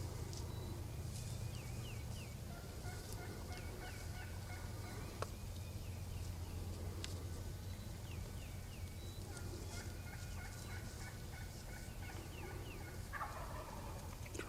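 Wild turkey gobbling: quick series of calls a couple of times, then a louder call near the end, over a steady low rumble.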